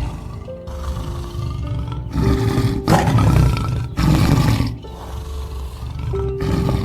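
Tiger roaring in a series of rough bursts, the loudest three close together near the middle, over background music with long held notes.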